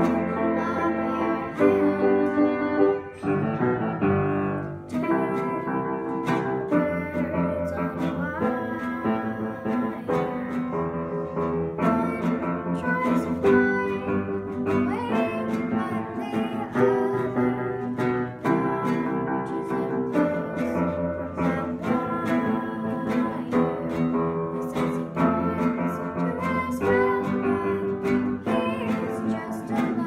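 Upright piano and a strummed classical guitar playing a pop song together, with a young girl singing the melody over them.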